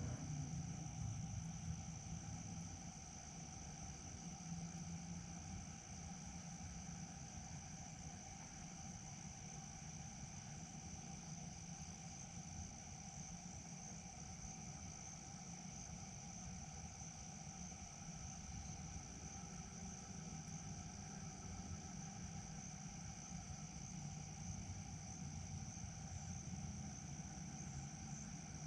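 Insects chirring steadily in a continuous high trill, with a fainter lower drone and a low rumble beneath.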